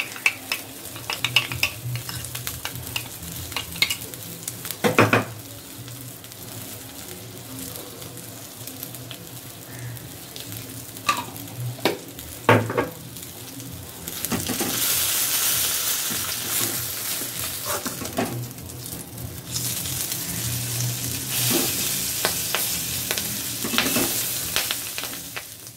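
Rohu fish pieces coated in a yogurt paste sizzling in hot oil in a kadai, with a metal spatula clicking and scraping against the pan. The sizzle gets much louder about halfway through as the pieces are worked in the oil.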